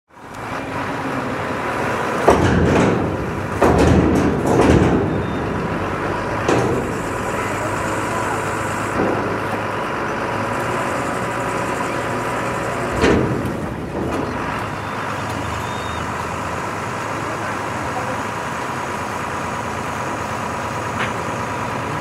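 Steady rumble of vehicle engines, with faint voices and a few louder bursts of noise in the first five seconds and again about thirteen seconds in.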